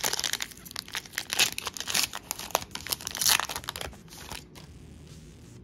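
Foil booster-pack wrapper of Pokémon trading cards being torn open and crinkled by hand: a dense crackling that goes on for about four seconds, then dies down.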